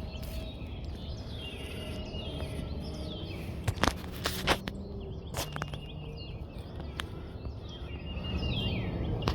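Low steady rumble of a Boeing C-17's Pratt & Whitney turbofan engines flying past, growing louder near the end, with birds chirping over it. A few sharp clicks come about four to five seconds in.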